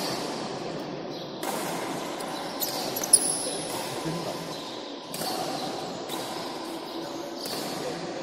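Badminton hall background noise with a handful of sharp knocks from the court, the loudest a short crack about three seconds in.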